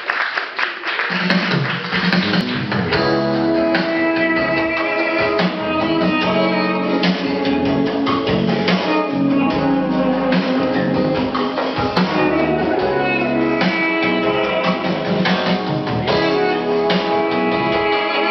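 Instrumental introduction of a pop song, with guitar and drums, played loud over the hall's sound system as applause dies away in the first second.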